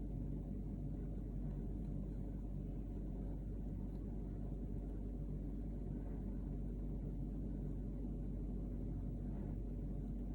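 Steady low drone that holds an even level, with no distinct events.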